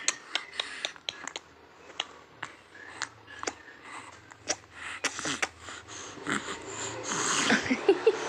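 A baby with a cold snuffling and snorting as it breathes through a blocked nose, with many small clicks throughout. It gets louder and busier near the end, where there is a brief voice sound.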